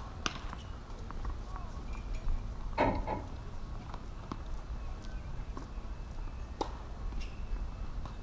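A few sharp, sparse knocks of a tennis ball on a hard court, with a short voice about three seconds in, over a steady low rumble.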